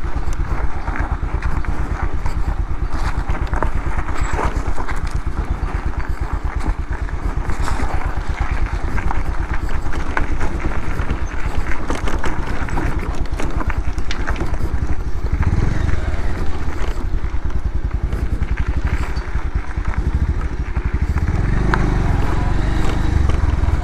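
Bajaj Pulsar 150's single-cylinder engine running steadily while the bike is ridden.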